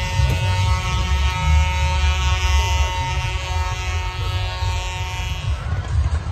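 A loud steady buzzing drone with many overtones over a heavy low rumble; the drone fades out about five and a half seconds in.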